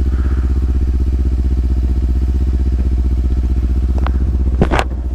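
Sport motorcycle engine running with a steady, even note and a fine regular pulse. A brief sharp sound cuts in twice near the end.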